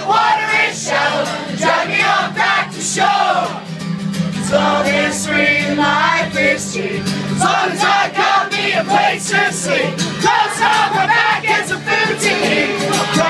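Live acoustic guitar strummed under a man singing loudly, with a crowd singing along.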